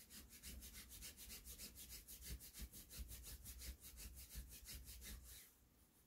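Faint, rapid scrubbing of a fabric bed sheet by hand, about eight quick strokes a second, cleaning a stain out of the sheet; the rubbing stops shortly before the end.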